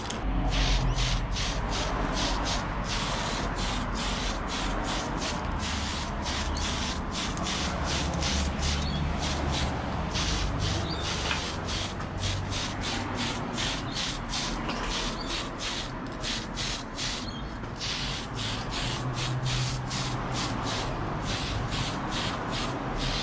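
Aerosol spray-paint can hissing in a long run of short, quick bursts, a few a second, as paint goes onto a model body.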